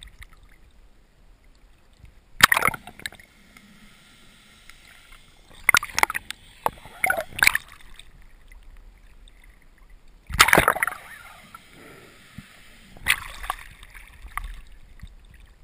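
Sea water splashing and sloshing around a camera held at the surface, in several short bursts, the loudest about ten seconds in.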